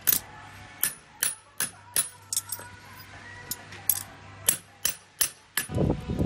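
Hand hammer striking a steel knife blank on an anvil: about a dozen sharp, ringing metal-on-metal blows at an uneven pace, with a pause of over a second about halfway through. Near the end the blows stop and a low rushing noise takes over.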